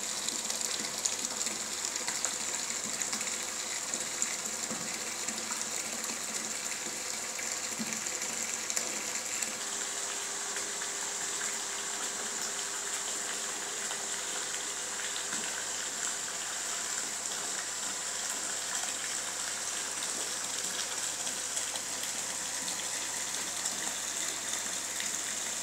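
Filtered wine pouring in a steady stream from a plate filter's outlet hose into a tub of foam: a continuous gushing splash of liquid.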